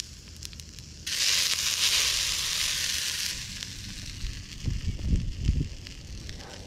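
Boiled noodles dropped into a hot steel frying pan, sizzling loudly as they hit it. The sizzle starts suddenly about a second in and fades after about two seconds, with a few low bumps later on.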